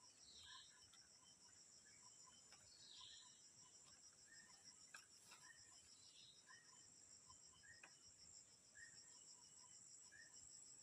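Faint chorus of crickets or other insects, a steady high-pitched pulsing trill, with a short, lower call repeating about once a second.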